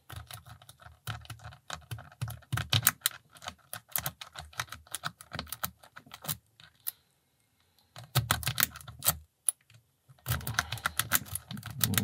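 Rapid metallic clicking of a city rake being scrubbed in and out of the keyway of a Brinks 30 mm brass pin-tumbler padlock, its pins chattering under tension. The clicking comes in three runs, with short pauses about six and nine seconds in.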